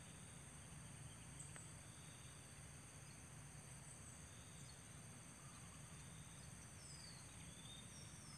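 Faint, steady high-pitched chorus of insects such as crickets, with a few faint short chirps, one falling in pitch, over its second half.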